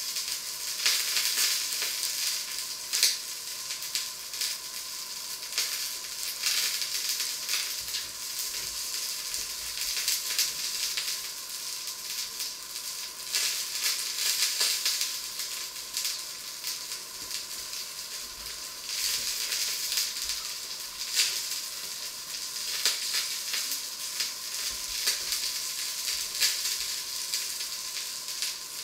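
Food frying in a pan on the stove: a steady sizzling hiss with frequent small crackles and pops.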